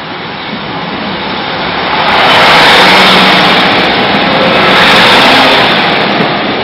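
Diesel multiple unit passing at close range over a level crossing: a loud, steady rush of engine and wheels on rail. It builds in the first two seconds and stays loud as the coaches go by.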